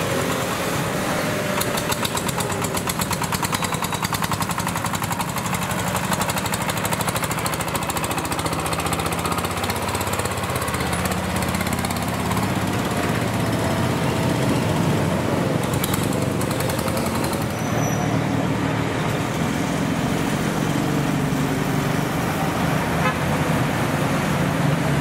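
Single-cylinder diesel engine of a farm tractor-truck chugging with a rapid, even knock as it drives past and away, over steady road-traffic noise. Another tractor-truck comes closer near the end.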